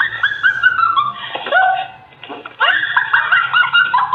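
A person laughing in a run of short, high, falling cries, with a brief pause about two seconds in before the laughter starts again.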